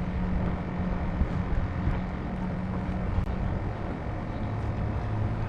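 A steady low motor hum held at one pitch, over constant rough low rumbling noise.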